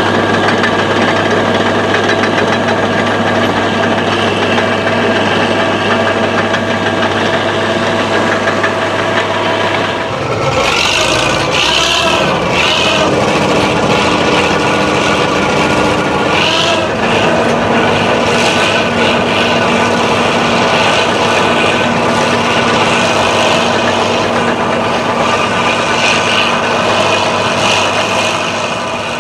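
Fiat Allis AD14-C crawler dozer's diesel engine running hard under load in a steady drone. About a third of the way in the engine note wavers and shifts, with bursts of high squealing and clatter, then it settles back to a steady drone.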